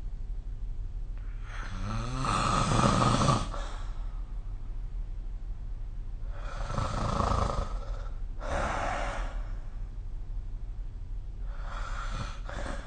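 A sleeping person snoring: four snoring breaths, the loudest about two seconds in with a rising pitch at its start, and a softer one near the end.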